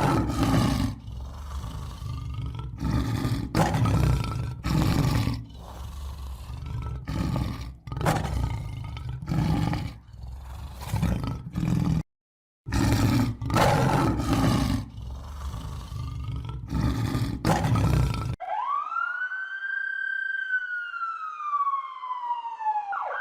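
Lion roaring in a run of loud, repeated roars and grunts. The run breaks off for a moment of silence about halfway through. Near the end the roaring stops and a single siren-like tone rises and then falls slowly over about five seconds.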